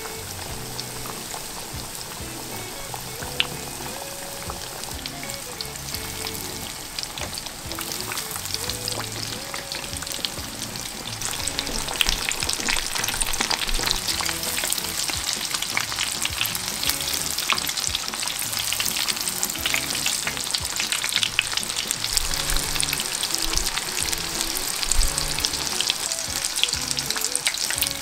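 Breaded menchi katsu (minced-meat and cabbage cutlets) deep-frying in hot oil in a pot: a steady sizzle thick with crackles, growing louder about twelve seconds in.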